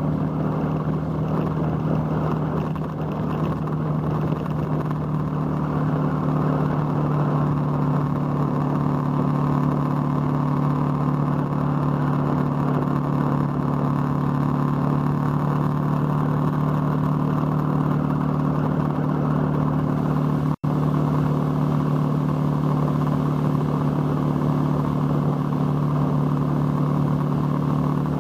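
Motorcycle engine running at a steady cruising speed with a constant engine note, along with wind and road noise. The sound cuts out for an instant about twenty seconds in.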